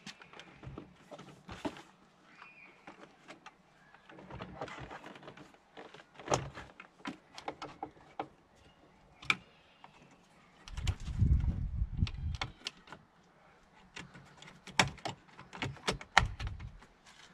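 Interior door panel being fitted to a Mercedes C-Class convertible door: scattered plastic clicks and knocks as the trim is handled, pressed into place and its clips snap in. A stretch of low, muffled thumping about eleven seconds in is the loudest part.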